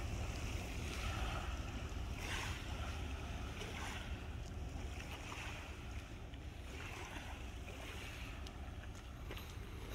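Small sea waves washing onto the shore in repeated soft swells, with wind rumbling on the microphone.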